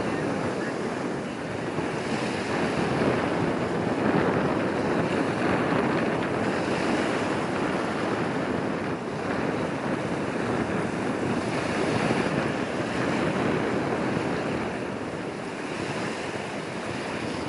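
Wind buffeting the microphone over small waves on choppy water: a steady rushing noise that swells and eases, with no engine or horn standing out.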